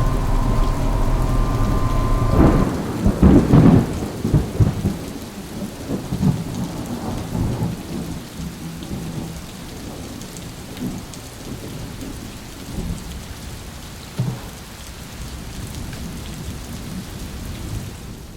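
A tractor engine runs steadily in the cab for about two and a half seconds. Then comes thunder rumbling over steady rain, loudest just after the change and fading away.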